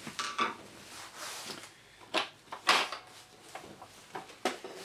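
Short plastic knocks and clatter from an upright vacuum cleaner's plastic floor head being handled during reassembly: about four sharp knocks, the loudest a little past the middle, with a brief scraping rustle about a second in.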